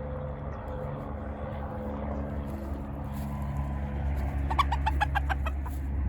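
A quick run of about eight short clucks from a chicken, roughly six a second, comes about four and a half seconds in, over a steady low mechanical hum.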